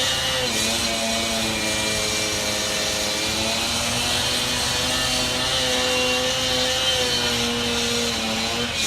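Construction machinery running steadily: a loud mechanical hum with overtones and a noisy hiss above, its pitch dipping and recovering a few times.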